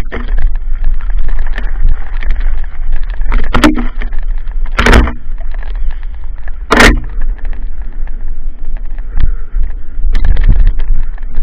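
Mountain bike rolling fast down a gravel trail: a constant rattle and crunch of tyres over loose stones, with wind rumbling on the microphone and three louder knocks around the middle.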